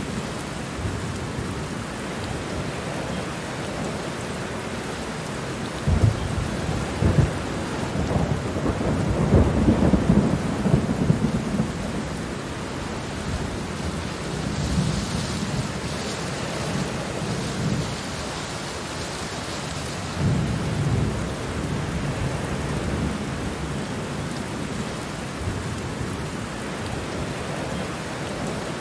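Steady rain falling on plants, with low rolling rumbles of thunder that swell several times, loudest from about six to twelve seconds in and again near twenty seconds.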